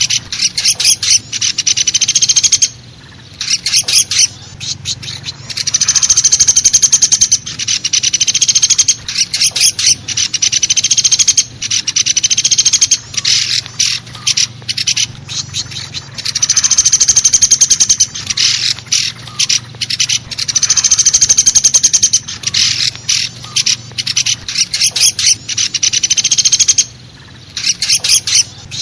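Woodpecker calls from a bird-lure recording: loud, rapid rattling trills repeated in runs of about one to two seconds with short gaps between them, over a faint low hum.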